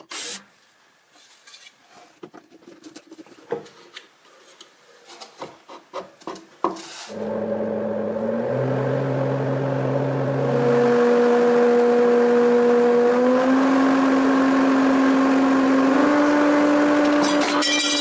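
A few scattered clicks and knocks, then a servo-motor-driven blower with a 3D-printed impeller with forward-facing fins starts up about seven seconds in. Its hum and whine jump up in pitch in steps every two to three seconds as the speed is raised through set RPM levels.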